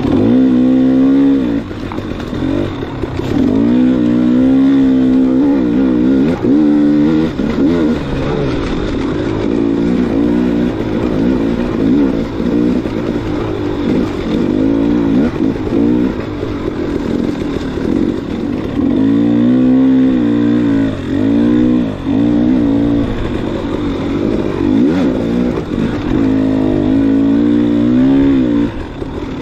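Dirt bike engine revving up and down over and over as the rider works the throttle and gears, its pitch climbing and dropping every second or two, with the strongest bursts early on, in the middle and near the end.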